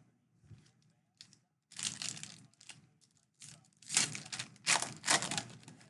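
Wrapper of a Donruss baseball card pack being torn open and crinkled, in a run of short crackling rips.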